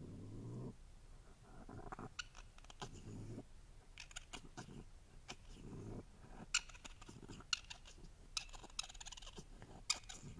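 A faint, low grunt-like vocalization from an unidentified animal, played on a loop so that it recurs every second or so, with sharp crackles and clicks between the repeats. The uploader presents it as a possible Bigfoot sound.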